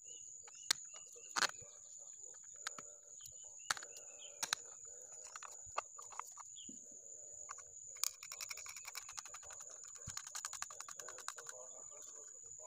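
Scattered sharp clicks and knocks of small metal bolts and PVC pipe parts being handled and fitted together, with a dense run of rapid ticking about two-thirds of the way in. Birds chirp in the background over a steady high thin whine.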